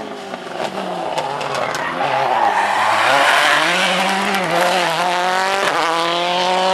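Rally car engine passing the roadside at speed, swelling to its loudest midway as it goes by under hard throttle. Near the end there is a sharp crack, then the revs climb steadily again through the next gear.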